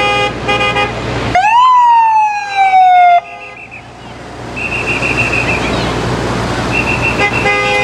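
Ambulance siren and horn: two short horn blasts, then one siren wail that rises quickly and sinks slowly before cutting off abruptly, followed by a few faint short chirps and another horn blast near the end, over street traffic noise.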